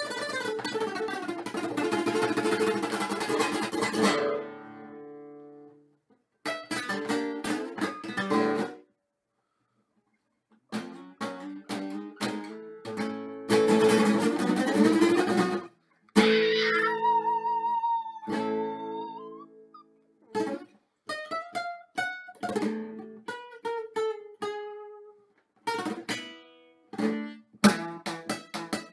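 Acoustic guitar played solo: fast strumming in bursts mixed with single plucked notes and held chords, in phrases broken by short silences.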